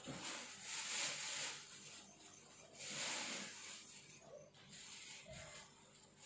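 Leopard cat hissing, two long hisses about two seconds apart.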